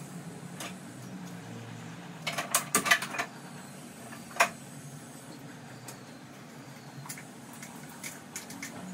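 Metal pans and utensils clinking and clattering on a gas stove: a quick run of clatter about two and a half seconds in, one sharp clink a couple of seconds later, and light scattered ticks, over a low steady hum.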